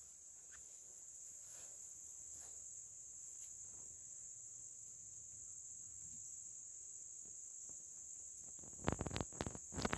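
A steady, high-pitched chorus of insects singing continuously in the surrounding grass and woods. A few sharp clicks come about a second before the end.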